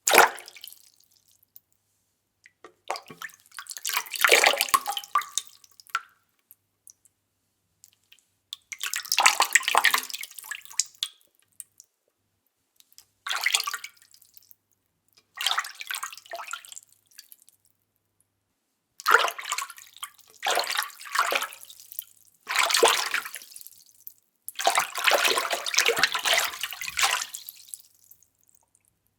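A series of separate water splashes, about nine in all, each a short burst of splashing and dripping water that dies away, with dead silence between them.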